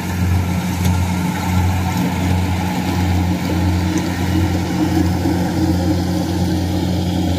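Kubota combine harvester's diesel engine running steadily as it harvests rice, a loud low hum with a regular pulsing throb.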